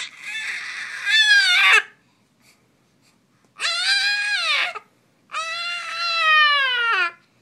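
A baby of about five months screeching in three long, high-pitched squeals, each rising and then falling in pitch.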